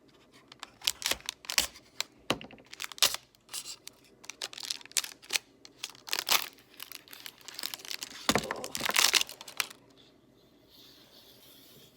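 Packaging crinkling and tearing, with many sharp clicks and rustles, as a fishing rod and reel are unwrapped by hand; the handling stops about ten seconds in.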